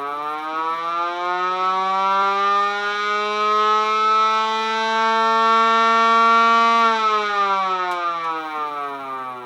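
Fire department siren sounding a short test. It finishes climbing in pitch, holds one steady, loud wail, then winds down in pitch and fades from about seven seconds in.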